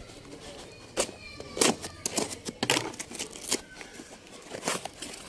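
Cardboard parcel being cut and torn open with a knife: a series of short, sharp rips and scrapes, the loudest about a second and a half in.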